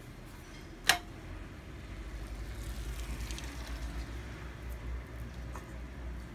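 A single sharp click about a second in, then a low engine rumble that swells and pulses steadily, like a motor vehicle running or passing close by.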